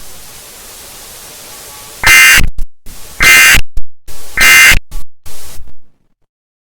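Steady static hiss, then three short, loud, harsh buzzing data bursts about a second apart: Emergency Alert System end-of-message tones closing a mock alert broadcast, cutting to silence.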